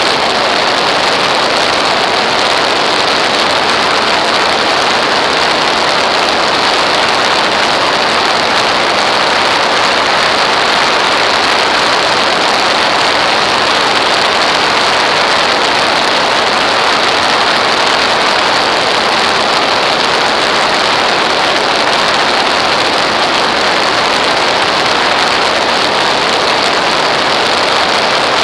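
Steady, loud rushing noise of airflow and engine picked up by a camera mounted on an aircraft's wing in flight, unchanging throughout.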